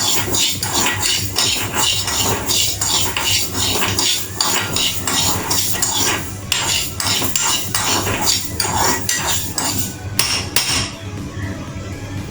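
A spoon clattering and scraping in a pan of dry-fried yellow moong dal, with rapid, irregular knocks that stop about eleven seconds in.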